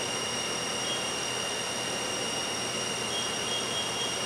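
The spindle of a 2012 Southwestern Industries Trak LPM vertical machining center runs steadily at about 2,500 RPM, giving a constant high whine over a steady hiss.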